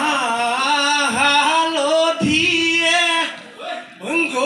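A voice singing a folk song in long held notes that slide up and down in pitch, with a couple of low thuds underneath.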